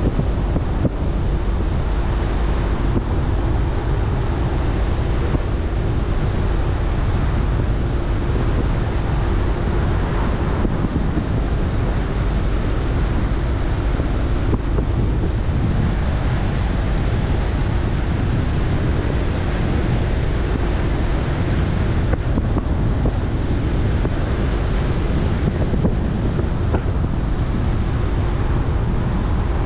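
Road and wind noise of a car being driven at a steady speed: a constant low rumble of tyres and air, with a faint steady hum that fades in the middle and comes back near the end.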